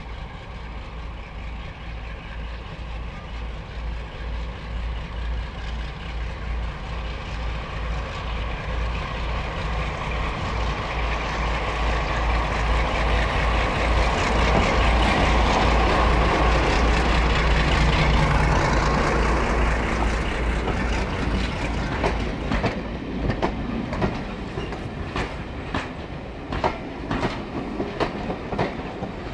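Class 52 Western diesel-hydraulic locomotive hauling a train approaches and passes, its engine sound growing to a peak about halfway through, then fading. The wheels click rhythmically over rail joints as the carriages go by.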